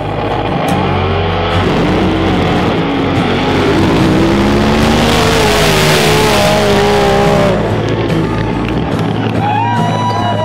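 A racing engine running hard, its pitch rising and falling, with a rushing roar that builds to a peak about halfway through and cuts off abruptly, over background music.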